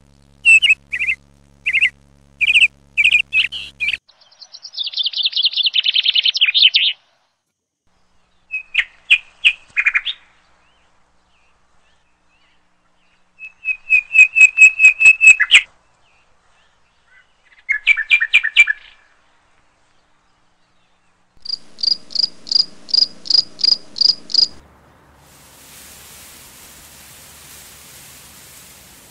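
Birds calling in separate bouts of rapid repeated chirps and trills, with dead silence between the bouts. Near the end these give way to the steady rush of a moving vehicle's wind and road noise.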